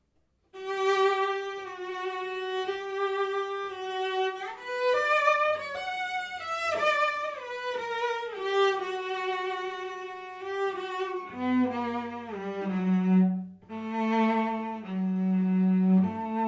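Solo cello played with the bow, starting about half a second in: a long held high note, then a run of notes climbing and falling back, and lower sustained notes in the second half.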